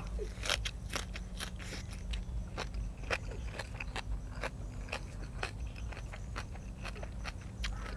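Mouth chewing and crunching food close to the microphone, with many irregular crisp clicks and wet smacks.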